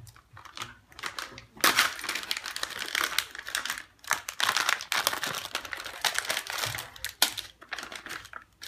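A Lego Friends kit being opened by hand: irregular rustling, tearing and crinkling of packaging with many sharp clicks and rattles.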